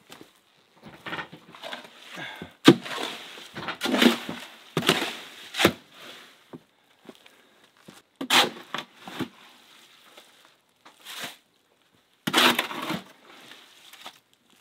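A shovel scraping along the bottom of a steel wheelbarrow and scooping out wet, heavy mix, several scoops a few seconds apart.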